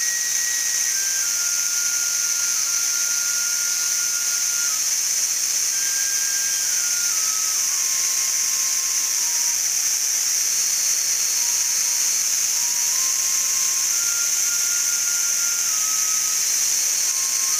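A shinobue (Japanese bamboo flute) plays a slow melody of long held notes. Under it runs a steady, high-pitched chorus of higurashi (evening cicadas), which is the loudest sound.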